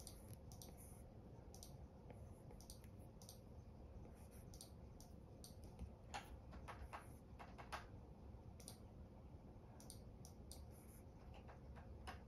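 Faint, irregular clicks of an Apple Pencil's plastic tip tapping and sliding on an iPad's glass screen while lines are sketched, with a quicker, stronger run of clicks about six to eight seconds in.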